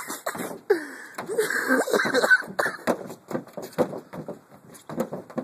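A person stomping repeatedly on the roof of an SUV, a run of short thumps on the body, mixed with breathy laughing and wheezing from the onlookers in the first half.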